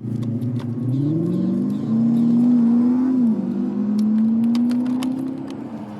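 A motor vehicle engine running, its pitch rising and falling as it revs, with scattered light clicks and knocks.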